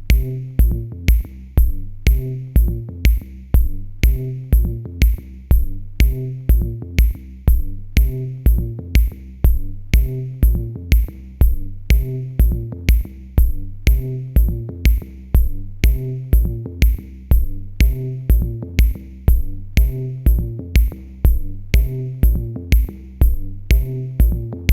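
Electronic background music with a steady drum-machine beat, about two beats a second, over a repeating bass and synth line.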